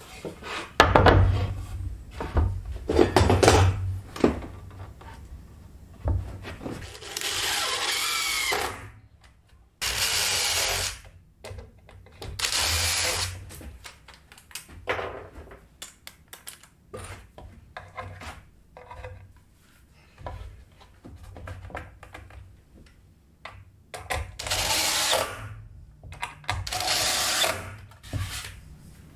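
Handheld power drill running in about five short bursts of one to two seconds each. Knocks and clatter of wood being handled come between the bursts.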